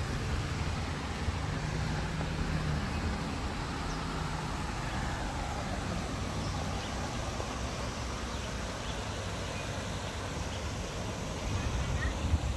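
Road traffic: a steady rumble and hiss of cars running on a roadway, a little louder near the end.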